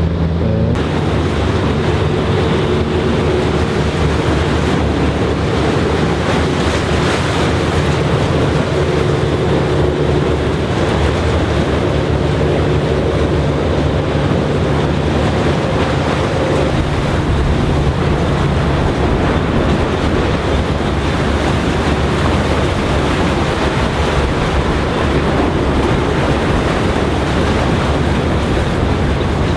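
Steady rush of waves and water at the harbour-mouth breakwater, with a boat engine's low drone underneath that fades out about halfway through.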